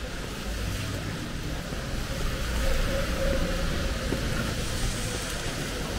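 Street traffic: a vehicle's engine rumble and tyre noise, getting louder about halfway through as it passes close by.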